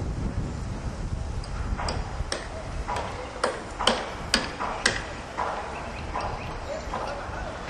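A series of sharp knocks, about seven, roughly two a second, over a low wind rumble that eases after the first seconds.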